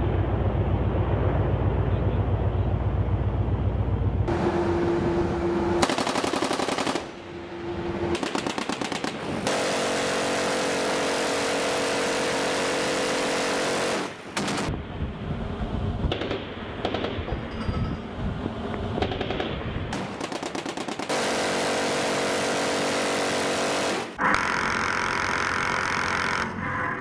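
Machine-gun fire from shipboard guns, among them an M134 rotary minigun, in a run of long bursts with short breaks between them.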